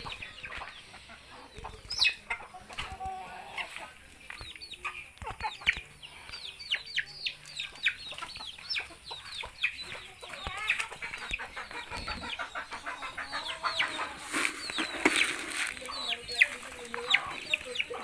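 Chickens clucking and calling, with many quick, high, falling chirps one after another, growing louder in the last few seconds.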